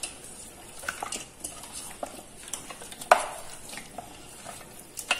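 Raw chicken being stirred into a thick curd and ginger-garlic marinade in a bowl: soft wet mixing with scattered light clicks and knocks, one sharper click about three seconds in.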